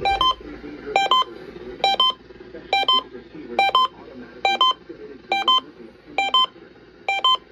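Emergency alert receiver beeping: nine quick two-note electronic beeps, evenly spaced about once a second, signalling an incoming weather radio alarm test.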